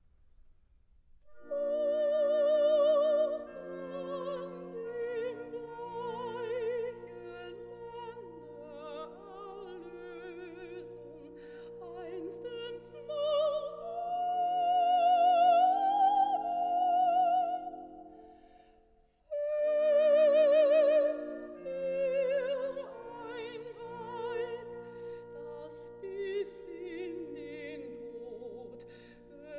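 Operatic soprano singing with a wide vibrato over a full orchestra, entering loudly after a second and a half of near silence. A long high held note swells in the middle, the music breaks off briefly a little past halfway, then comes back in loudly.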